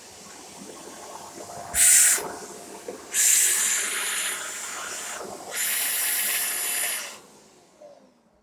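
Shark corded bagless vacuum cleaner running with a steady motor whine, broken by three loud hissing rushes of air about two, three and five and a half seconds in. About seven seconds in it is switched off and the motor winds down to silence.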